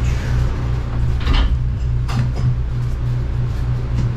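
Pilot boat's engine idling, heard inside the cabin as a steady, low, pulsing hum. Two short knocks come about one and two seconds in.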